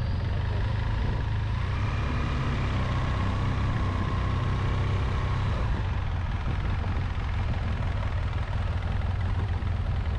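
Motorcycle running on the road, a steady low engine and wind rumble. A thin higher whine comes in about one and a half seconds in and stops about six seconds in.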